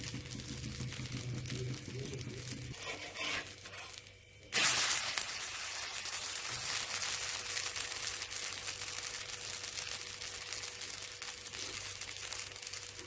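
Uthappam sizzling on a hot tawa. About four and a half seconds in, a loud burst of sizzling sets in as the freshly flipped side meets the pan, then settles into a steady hiss.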